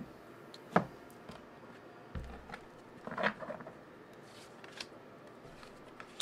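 Tarot cards being handled on a table as the deck is cut and cards are drawn and laid down: a sharp tap about a second in, a soft thump around two seconds, a brief rapid flutter of cards a little after three seconds, then a few light ticks.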